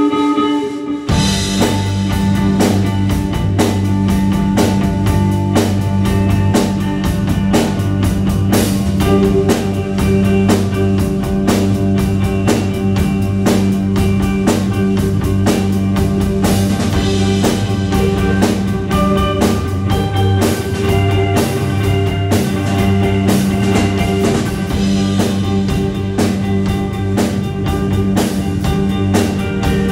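A rock band playing an instrumental: electric guitars ringing, joined about a second in by a baritone bass and a drum kit keeping a steady beat.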